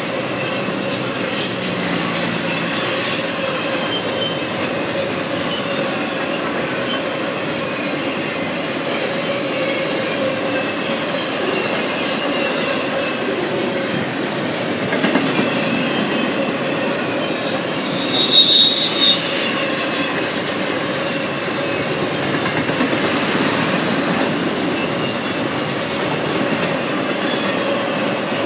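Cars of an intermodal freight train rolling past: a steady rumble of wheels on rail with a constant squealing tone and scattered clatter. A brief, sharper wheel squeal about two-thirds of the way through is the loudest moment, and a higher squeal comes near the end.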